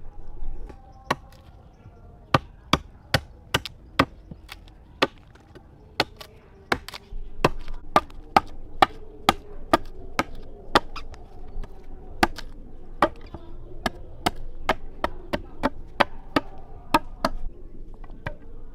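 Chopping: a blade striking wood over and over, about two sharp strokes a second and uneven, coming faster in the second half.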